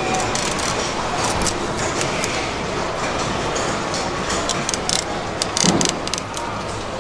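A filleting knife scraping and ticking over a salmon's rib bones as the fillet is cut away from the frame, in runs of quick clicks about a second in and again around five to six seconds in, over steady background noise.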